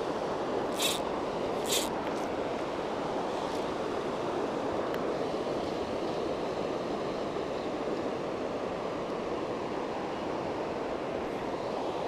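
Mountain stream water rushing steadily over rocks. Two short sharp clicks sound about one and two seconds in.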